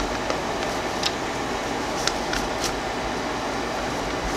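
Steady background hiss and hum, with a few faint soft taps about a second and two to three seconds in as a gold ink dauber is dabbed onto paper.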